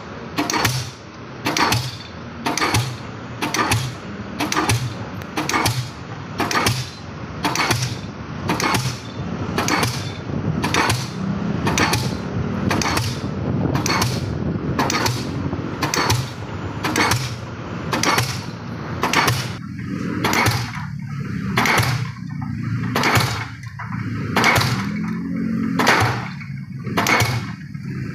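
Pile-driving hammer on a crawler crane striking precast concrete sheet piles in a steady rhythm, about four blows every three seconds, over a steady machine drone.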